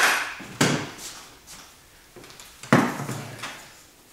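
Objects being moved and set down on hard surfaces: three sharp knocks with short tails, the first two about half a second apart and the third nearly three seconds in.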